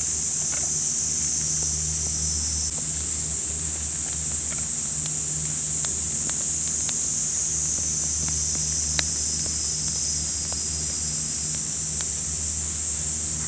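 Cicadas droning: a steady, high-pitched buzz that barely shifts in pitch. Faint scattered clicks and a low hum lie beneath it.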